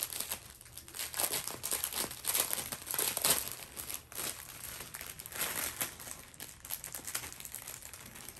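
Plastic packaging crinkling and rustling as a bundle of small diamond-painting drill baggies is handled. The rustles come in irregular spurts and are loudest in the first half.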